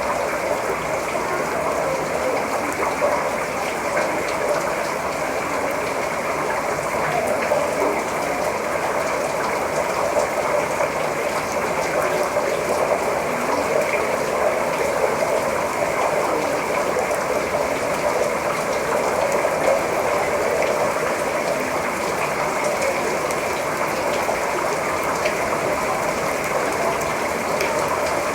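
Heavy rain pouring down in a steady, dense patter of drops that holds at the same level throughout.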